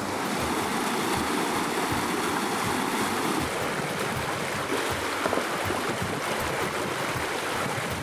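Mountain valley stream flowing: a steady rush of water.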